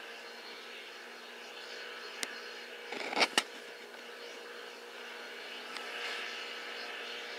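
Fishing boat's diesel engine running steadily as it gets under way, a hum with a hiss over it. A sharp click about two seconds in and a short, loud clatter of knocks about a second later.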